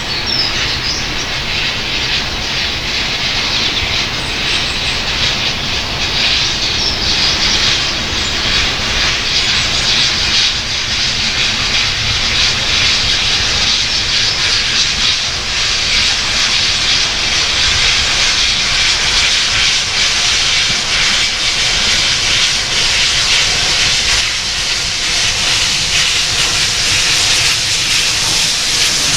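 Steam train running past: a steady, loud hissing rush of steam and running noise that holds level throughout.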